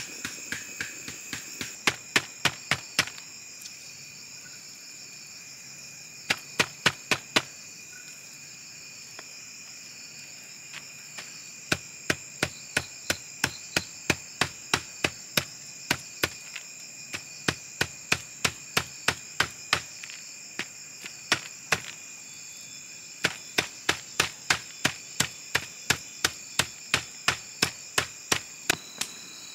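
Cleaver chopping pork on a wooden block, in runs of sharp strikes about three a second with short pauses between runs. Steady high insect chirring throughout.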